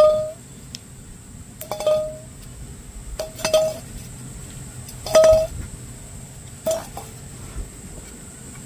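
Metal clinking against metal five times, about a second and a half apart, each strike ringing briefly, as the chestnuts are handled over the wood-fire embers.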